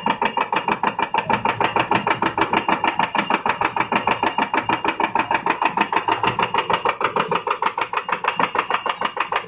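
DAKIOU JTCQ-D roll punching machine running at speed, stamping curved paper blanks from a printed paper roll: a fast, even clatter of about six strokes a second.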